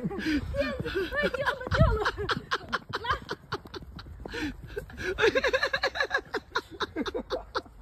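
People laughing: a run of short, rising-and-falling laughs that quickens into a rapid ha-ha about five seconds in. There is a dull thump about two seconds in.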